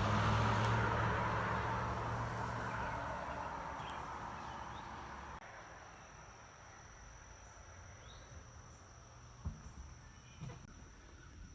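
A vehicle going by, its rushing noise and low engine hum fading away over about six seconds. After that, insects trill with a steady high tone, and two soft thumps come near the end.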